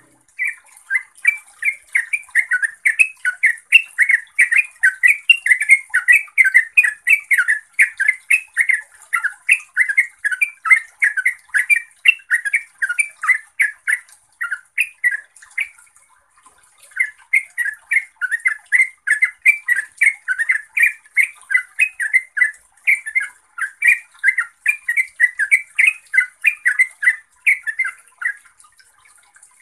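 Yellow-vented bulbul singing a long, rapid run of bubbling notes, about four or five a second, the continuous 'ropel' song. The run breaks off for about a second midway, then resumes and stops shortly before the end.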